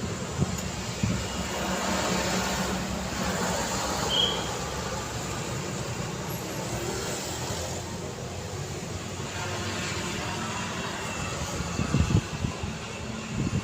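Steady city road traffic: vehicles passing one after another with engine and tyre noise, swelling with a louder pass about three seconds in and a few low thumps near the end.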